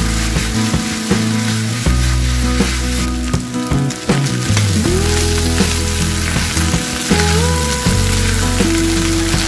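Chopped chicken gizzards sizzling as they are stir-fried in a non-stick wok, with the spatula scraping and tapping the pan, over background music.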